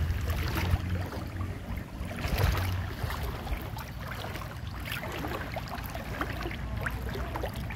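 Floodwater sloshing and splashing in many small irregular splashes, as of someone wading through it, with a low rumble that comes and goes in the first three seconds.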